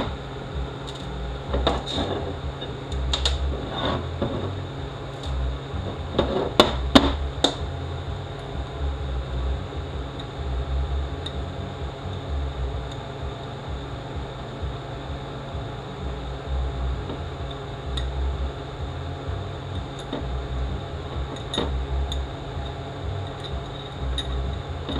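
Small metal parts clicking and tapping against the aluminium pump body of a 6L80E transmission on a steel bench, as the roll pin and pressure regulator valve are worked out; the taps come in a cluster in the first few seconds, the loudest about seven seconds in, with a few more later, over a steady low hum.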